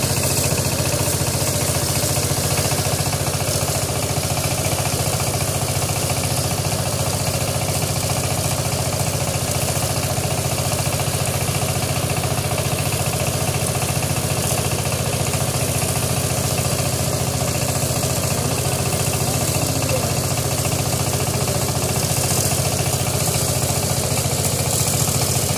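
Single-cylinder S195-type diesel engine of a ride-on power tiller converted to a mower, running steadily with an even, rapid firing beat as it drives the cutter through tall grass.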